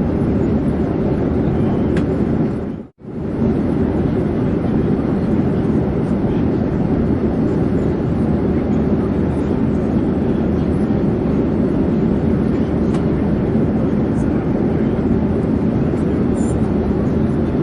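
Airplane in flight: a steady, dense, low engine rumble that briefly fades to silence about three seconds in and comes straight back.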